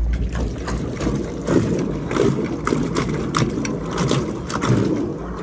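Water churning and slapping against the pontoon in the prop wash of a 46 lb-thrust electric trolling motor running in reverse, with frequent small splashes.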